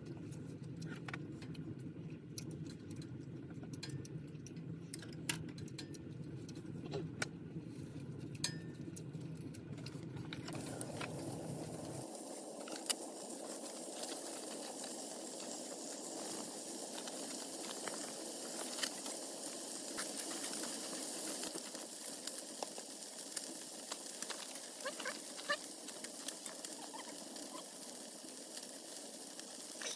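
Food frying in a pan, a steady sizzle with occasional small pops that sets in about ten seconds in. Before it there is a low rumbling background with scattered clicks.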